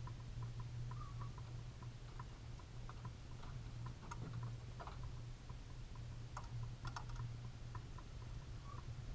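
Faint, irregular light ticking, several ticks a second, over a steady low hum.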